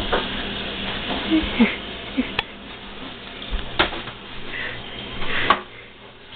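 Kitchen clatter: a few sharp knocks and clicks, one every second or two, over a steady hiss that drops away near the end.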